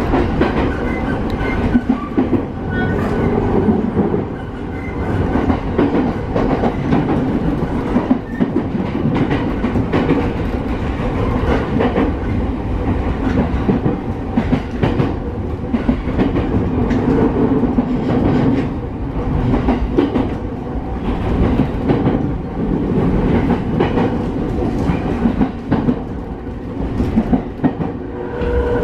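Cabin running noise of a JR East E217-series commuter train's motor car, which has Mitsubishi IGBT-VVVF traction equipment, under way: a steady rumble with repeated knocks of the wheels over rail joints, and a faint motor whine in the first few seconds.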